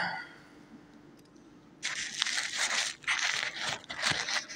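Quiet for about two seconds, then close, crackly rustling and crinkling in irregular bursts.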